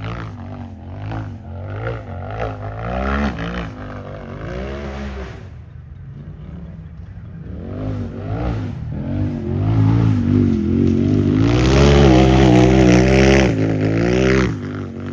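Unlimited-class UTV engine revving hard, its pitch rising and falling again and again as the throttle is worked over the terrain. It eases off briefly about six seconds in, then builds to its loudest run before dropping away near the end.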